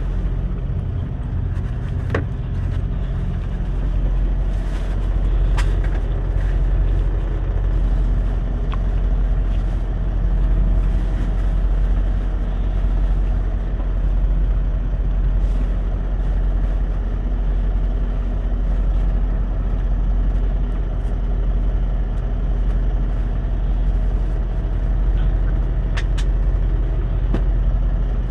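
Semi truck's diesel engine idling: a steady low hum heard inside the cab, with a few light clicks over it.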